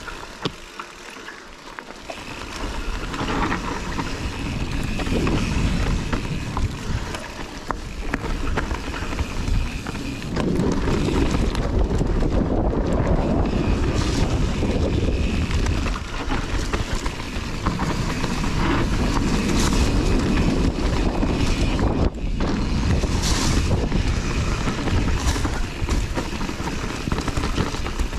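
Wind buffeting a chest-mounted action camera's microphone as a Kona Process 153 mountain bike rides down a dirt trail, with tyre noise and frequent clicks and rattles from the bike. It grows louder about two seconds in and again around ten seconds in.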